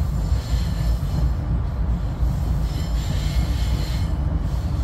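SEPTA Regional Rail train in motion, heard from inside the passenger car: a steady low rumble of wheels on track. Fainter higher wheel noise swells about half a second in and again around three seconds in.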